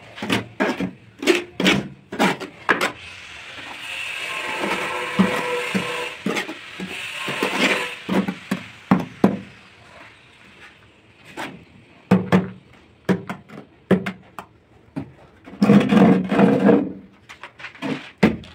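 Trowel scraping and knocking as tile adhesive is spread and combed onto a wall and the back of a tile, with a long scrape in the middle and a quick run of knocks near the end as the tile is set.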